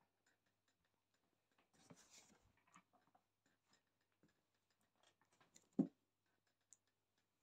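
Quiet handling of a swivel office chair with a cat on it being turned: faint scattered clicks and a soft rustle, with one short, dull thump a little before six seconds in.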